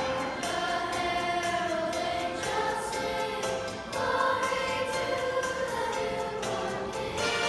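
Children's choir singing, holding long notes that change pitch every second or two.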